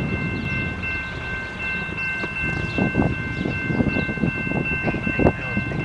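Railroad crossing warning bell ringing steadily while a train approaches, over a low rumble, with a few low thumps in the second half.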